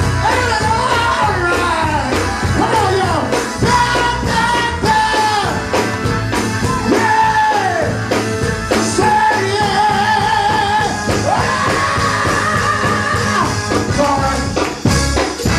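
Gospel song performed by a vocal group with a band: a lead voice sings long sliding and held notes over a steady bass and drum beat.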